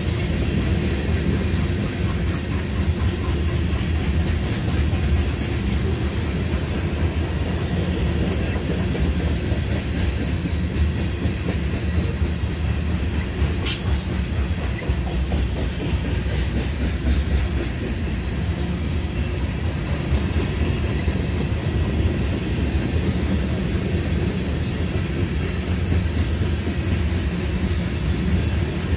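Grain train's covered hopper cars rolling past at speed, steel wheels running on the rails with a steady, even noise strongest in the low end. One sharp click comes about halfway through.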